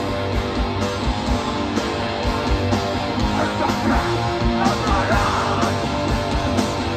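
Live hardcore punk band playing: distorted electric guitar, bass and drums, with a fast, even kick-drum beat.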